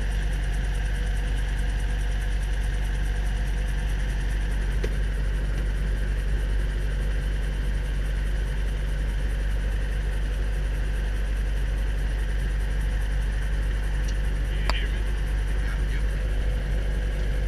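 Robinson R22 helicopter's piston engine and rotor system running steadily on the ground during start-up, heard from inside the cockpit: a deep, even rumble with steady higher tones over it. A brief click sounds near the end.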